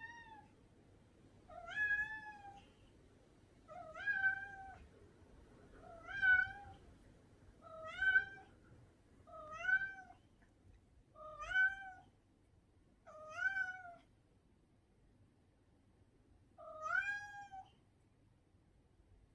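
Domestic cat meowing repeatedly, about nine meows roughly two seconds apart, each rising then falling in pitch, with a longer pause before the last one.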